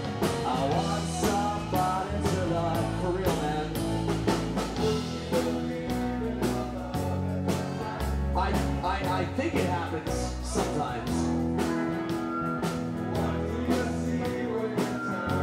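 Rock band playing live with a male lead singer, electric guitars, bass and a drum kit keeping a steady beat.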